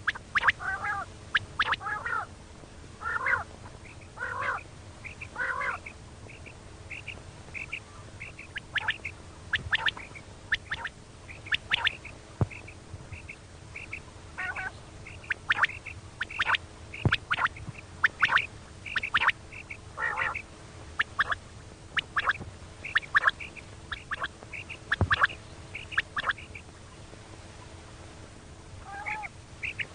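Common quail calling: series of short, sharp repeated notes, one after another with brief pauses, and a gap of about two seconds near the end.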